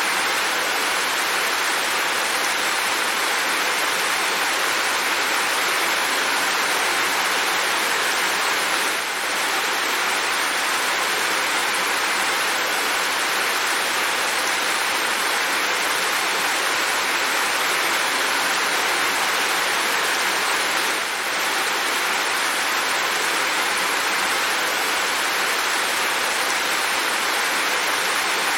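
Steady heavy rain, a dense even hiss with no separate drops standing out, dipping slightly for a moment twice.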